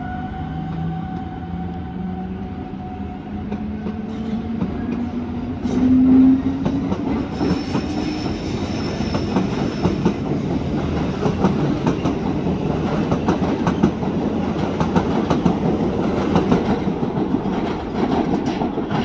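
Rhaetian Railway electric locomotive pulling a train away: the traction motors whine, rising steadily in pitch for the first six seconds or so. After that, wheels rumble and clatter over the points and rail joints, with a brief thin squeal and many sharp clicks.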